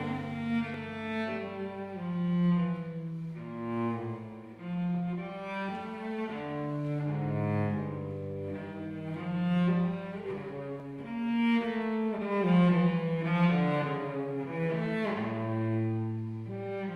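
Cello playing a melody of long, sustained bowed notes.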